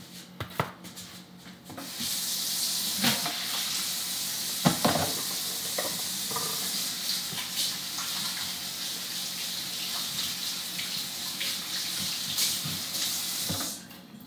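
Kitchen faucet running into a sink, turned on about two seconds in and shut off near the end, with a few knocks and clatters under the stream.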